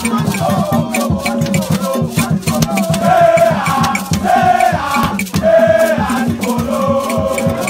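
Background music: singing voices over a steady, quick beat of shaker and drums.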